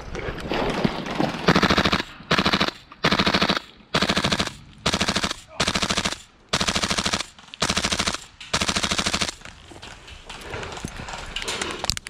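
Airsoft rifle, a Tokyo Marui MWS gas blowback run on HPA through an Airtac adapter, firing about nine short full-auto bursts in quick succession, each a rapid clatter of shots under a second long. Before the first burst there is rustling and movement noise.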